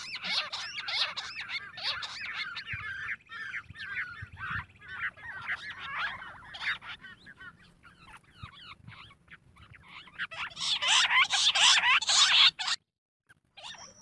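A covey of bush quail calling: a dense chorus of short, overlapping chirping and whistling notes. It swells much louder about ten seconds in and then cuts off abruptly.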